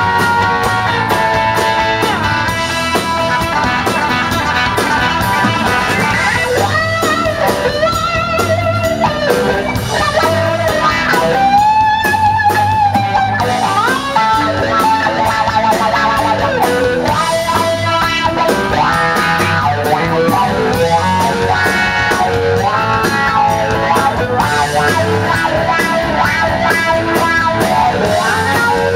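Live country-rock band playing, with a Telecaster-style electric guitar out front over drums and bass; about twelve seconds in, a held lead note bends and wavers.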